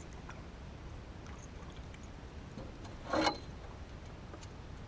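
Steady low outdoor noise of wind and water around a small aluminum boat while a hooked bass is played on a spinning rod, with one short, louder sound about three seconds in.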